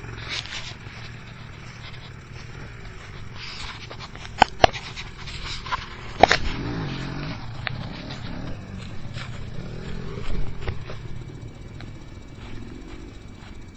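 KTM 300 EXC two-stroke dirt bike engine running, its pitch rising and falling about halfway through as the throttle is worked. Three sharp clicks, the loudest sounds, come about a third to halfway through.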